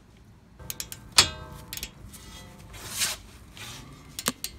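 Metal hand tools clinking as an 18 mm shallow socket on an angle-head ratchet is handled and set onto a hub bolt, with one sharp clink about a second in and a few lighter clicks near the end. Background music plays underneath.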